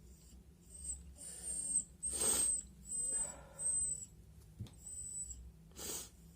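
A series of short sniffing, snuffling breaths through the nose, several with a thin high whistle.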